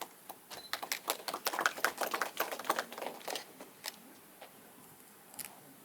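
A small audience clapping briefly in a small room: scattered, irregular claps that thin out and stop after a few seconds.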